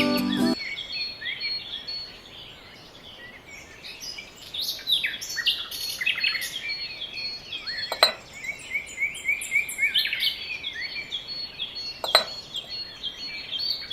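Background music cuts off just after the start, leaving many small birds chirping and twittering continuously. Two sharp clicks, one a little past halfway through and one near the end.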